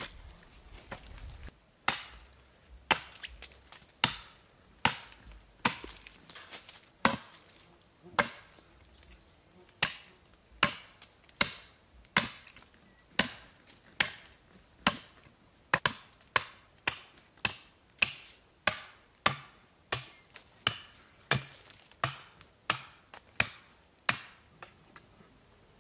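Wood being chopped: a long series of sharp blade strikes into wood, about one a second at first, quickening to about two a second.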